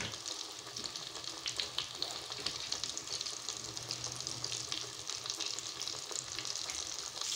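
Samosas deep-frying in hot oil in a kadhai: a steady sizzle with many small crackles and pops.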